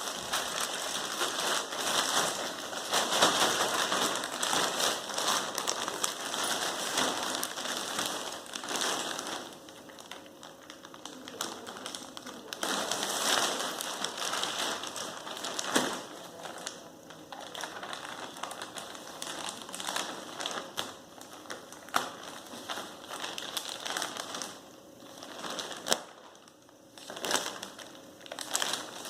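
Rustling and crinkling handling noise of a nylon hiking rucksack, with many scattered sharp clicks, louder in the first nine seconds and again around thirteen seconds in.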